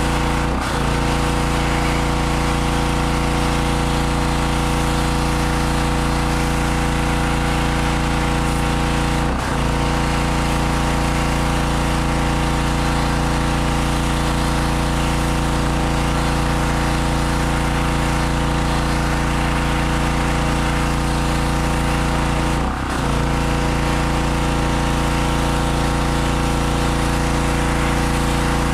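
Harbor Freight 2500 PSI pressure washer's 160cc single-cylinder gas engine running steadily, with the hiss of the high-pressure water jet. Three times the engine's pitch sags briefly and recovers.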